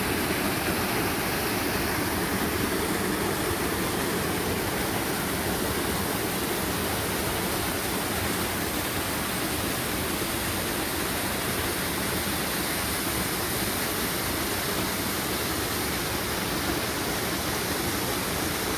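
Waterfall rushing steadily: an even, unbroken roar of falling water.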